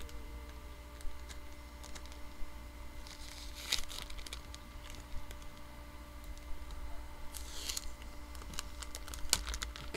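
Blue painter's tape being peeled off a plastic-wrapped mailer, with small clicks and taps and the crinkle of plastic. Two longer ripping, rustling pulls come about four seconds in and again about eight seconds in.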